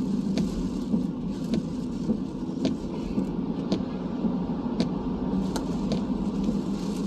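Steady low drone of a car driving, heard from inside the cabin, with scattered sharp ticks of raindrops striking the car.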